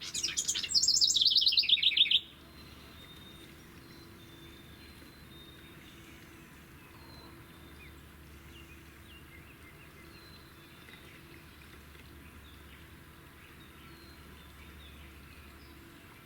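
A wren singing a loud, rapid trill that lasts about two seconds and falls in pitch, followed by faint scattered chirps.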